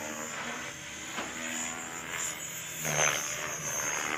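Align T-Rex 550 radio-controlled helicopter flying pirouettes: a high motor and rotor whine whose pitch dips and rises, swelling louder about three seconds in.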